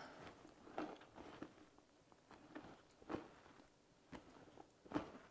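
Near silence with a few faint, short, soft knocks and rustles, about six over five seconds, from a canvas handbag with leather trim and strap being handled and held up.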